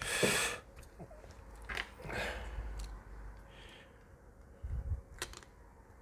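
Small parts of a MacBook Air being handled during reassembly: a short hiss at the start, then scattered light clicks and taps, with two sharper clicks about five seconds in.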